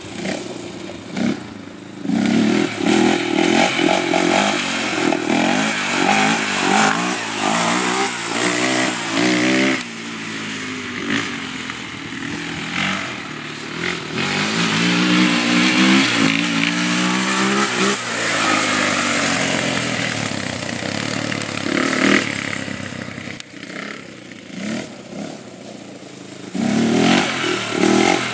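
Honda 400EX sport quad's single-cylinder four-stroke engine being ridden hard, revving up and easing off again and again, its pitch sweeping up and down, with quieter stretches as it runs farther off.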